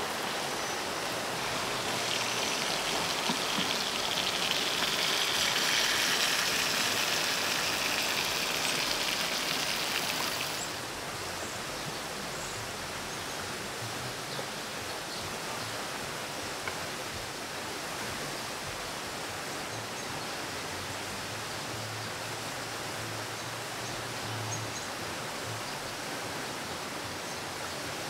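Chicken wraps sizzling in a cast iron pan beside a wood fire, a bright steady hiss that cuts off suddenly about ten seconds in. A quieter, even hiss follows, with a few faint ticks.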